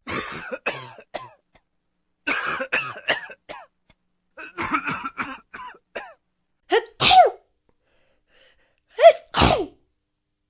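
Repeated coughing in short clusters separated by brief silences, some bursts sneeze-like, with the two sharpest and loudest coughs near the end.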